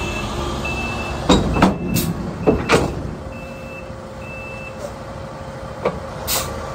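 Truck's reverse alarm beeping at a steady pace, about one beep a second, over the engine running, while the truck backs up. A few loud sharp knocks come in the first three seconds, and the beeping stops a little before the end.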